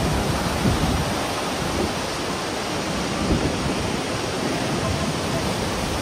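Steady loud rush of the Krimml Waterfalls close up: a huge volume of water crashing onto rocks, with spray filling the air.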